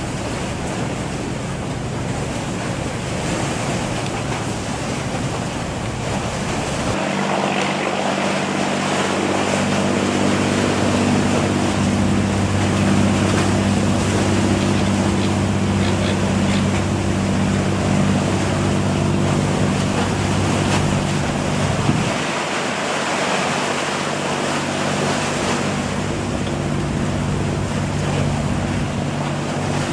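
A fishing boat's engine runs steadily under a constant wash of wind and waves. Its low hum comes in clearer and louder from about seven seconds in until a little past twenty seconds.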